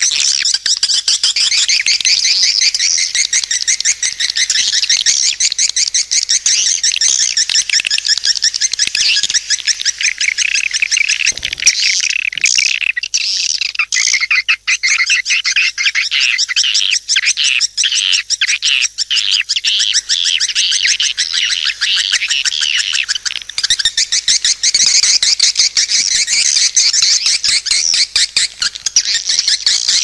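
Swiftlet calling sound, the lure call played to draw swiftlets into a swiftlet house: dense, rapid, high twittering chirps. About twelve seconds in, the chatter thins into separate, lower chirps for roughly ten seconds, then the dense twittering returns.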